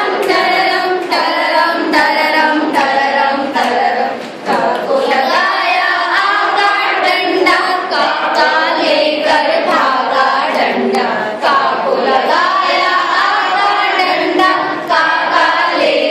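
A group of women singing a Hindi song together in unison, clapping along to the beat.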